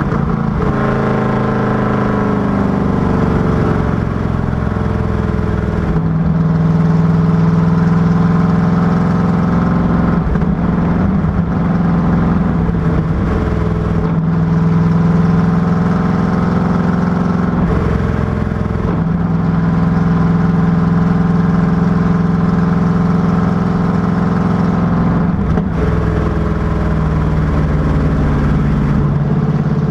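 Ford V8 of a Factory Five Cobra Daytona Coupé replica running hard on track. The engine note falls over the first few seconds, then holds, with brief breaks and changes in pitch every few seconds.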